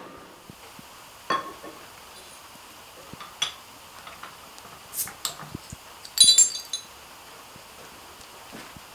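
Clinks of a glass beer bottle and a forged steel bottle opener: a few separate knocks, then a brighter cluster of ringing clinks a little after six seconds in.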